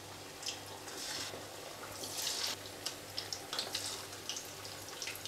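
Flour-battered chicken wings deep-frying in hot oil: a steady sizzle with frequent small crackles and pops.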